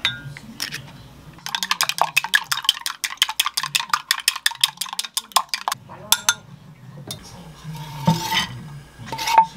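Eggs being beaten with chopsticks in a glass mug: a fast, even run of clicks of the chopsticks against the glass for about four seconds. Near the end, diced vegetables are scraped off a wooden cutting board into a frying pan, with a brief rustle and a sharp clink.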